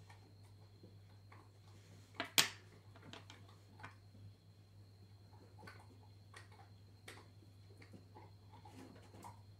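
Metal coins being handled, with one coin set down on a concrete floor about two seconds in, giving a sharp metallic clink. Light clicks and rustles of coins and fingers follow, over a faint steady low hum.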